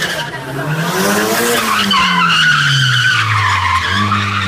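Nissan Silvia S14 drifting, its rear tyres squealing steadily on asphalt while the engine revs climb, drop back and climb again near the end.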